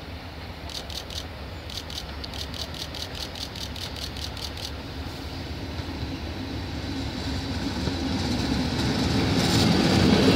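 Class 37 diesel-electric locomotive, its English Electric V12 engine running steadily as it approaches, growing louder over the last few seconds. A rapid high ticking, about four a second, runs for a few seconds near the start.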